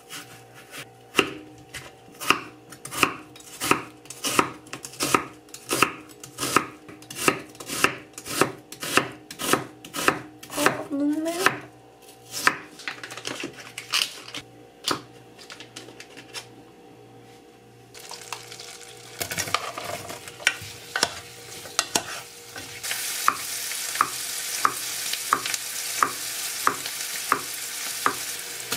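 Chef's knife chopping an onion on a wooden cutting board, two to three strokes a second, for about twelve seconds. After a quieter stretch, butter begins to sizzle in a pot, and the frying hiss grows louder as the knife slices mushrooms on the board with regular strokes over it.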